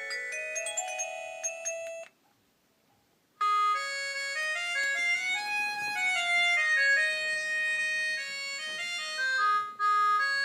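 Polyphonic ringtones played through a 2006 Xinhua dual-SIM phone's loudspeaker. A tune of short notes stops about two seconds in, and after a brief silence a different tune of held notes begins.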